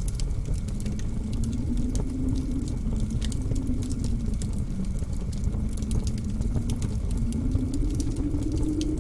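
Blizzard wind howling over a steady low rumble, its low tone wavering slowly in pitch and rising a little near the end, with scattered sharp crackles from a wood fire in a fireplace.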